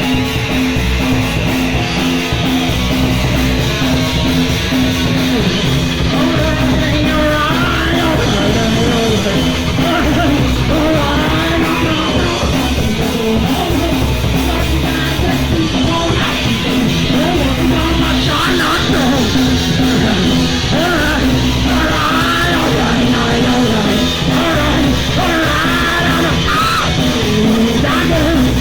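Punk rock band playing live at full volume, with a shouted, yelled vocal coming in about seven seconds in.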